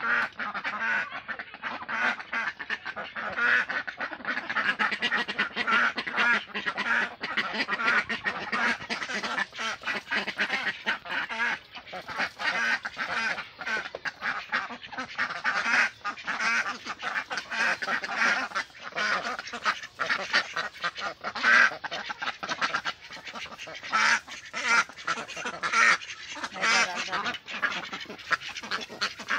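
A flock of domestic ducks quacking nonstop, many calls overlapping in a dense, rapid chatter.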